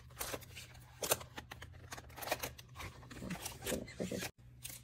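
Small stationery items and their plastic packaging being handled: a scatter of light clicks and rustles.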